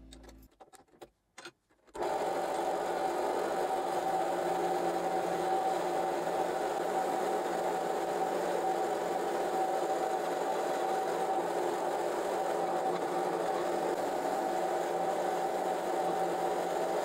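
Bench drill press spinning a wire cup brush, starting up about two seconds in and then running steadily, as a rusty iron hammer head is pressed against the wires to scour off the rust.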